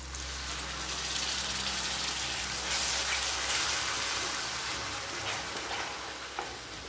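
Wet ground masala paste sizzling in hot oil in a steel kadai as it is poured in and stirred with a spatula: a steady hiss that is strongest about three seconds in and slowly eases.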